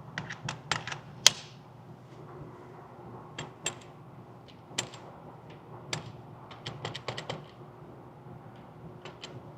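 Irregular sharp metallic clicks and clacks of a Ruger Mark IV .22 pistol being handled, its magazine and bolt being worked, with one much louder sharp crack about a second in.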